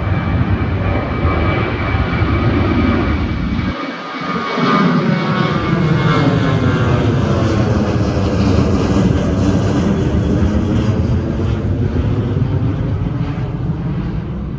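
Boeing 737-700 jet airliner's CFM56 turbofan engines at takeoff power as it departs past, a loud roar with a slowly sweeping, shifting tone as it passes. There is a brief dip about four seconds in.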